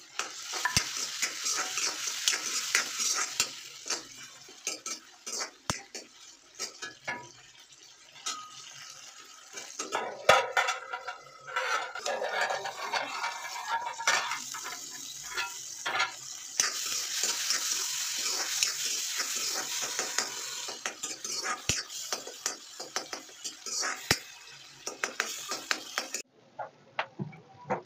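Chopped tomatoes and onions sizzling in hot oil in an iron kadhai, with a metal spoon scraping and clinking against the pan. A steel plate lid clatters on the rim. The sizzle drops for a few seconds and then comes up again.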